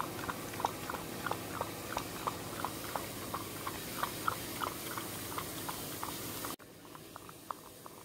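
A Shih Tzu lapping from a bowl with its tongue: an even run of soft, wet licks, about three a second. The licks become fainter about six and a half seconds in.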